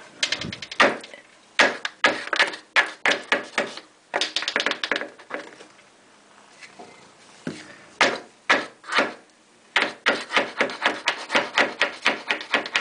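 Quick runs of hard taps striking a tiled floor, several a second, in bursts with a pause from about five to eight seconds in, as a cockroach in the corner is struck at.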